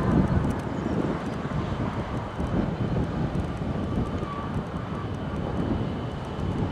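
Diesel locomotive running under power as it hauls a freight train toward the listener, a steady low engine rumble.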